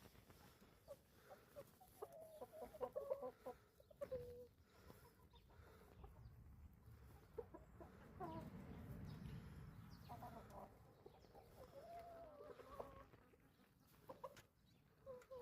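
Chickens clucking faintly, in scattered runs of short calls with pauses between.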